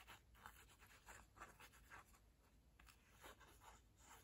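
Near silence, with faint, scattered small scratches and ticks as a plastic glue bottle's nozzle is run over paper.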